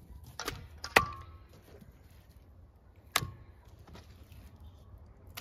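A few sharp knocks and taps on an enamel bowl as slices of raw meat are put into it and handled. The loudest comes about a second in, with a short metallic ring.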